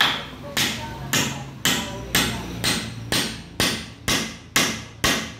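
Hammer driving a nail into a 2x2 wooden upright, fixing it to the wall: about ten sharp, even blows at roughly two a second.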